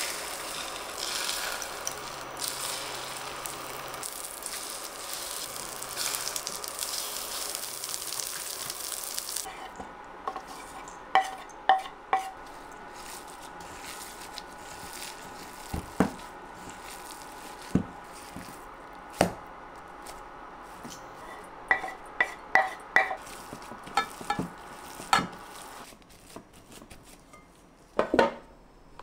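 Oil sizzling in a frying pan as egg-coated patties fry. About nine seconds in the sizzle drops away, followed by a string of sharp taps and clicks.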